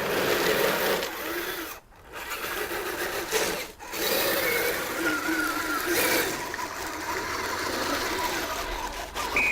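Small electric drive motor and gearbox of a Kyosho Blizzard DX RC snow cat whining as it runs, the pitch rising and falling with the throttle. It cuts out briefly about two seconds in and again near four seconds.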